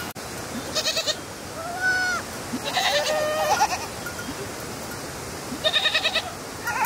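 Goats bleating: a wavering call about a second in, several overlapping bleats around three seconds in, and another near six seconds, over a steady outdoor hiss.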